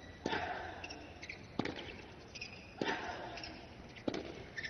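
Tennis rally: rackets striking the ball back and forth, four sharp hits about a second and a quarter apart.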